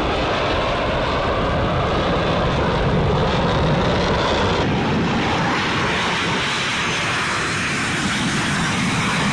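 Steady jet engine noise of fighter jets taking off: an F-35 climbing out with gear down. About halfway through the sound shifts abruptly to an F-16 on its takeoff run.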